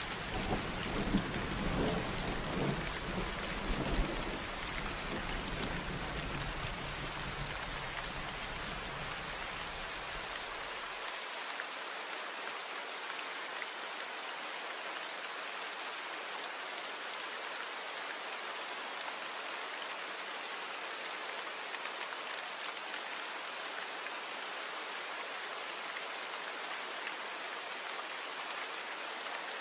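Steady rain falling, with a low rumble of thunder over the first eleven seconds or so, swelling a few times before it stops.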